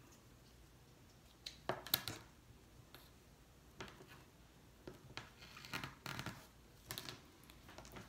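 Rotary cutter drawn through a sewn vinyl strap along an acrylic ruler on a cutting mat: a series of short, faint scrapes, with light knocks as the cutter and ruler are handled.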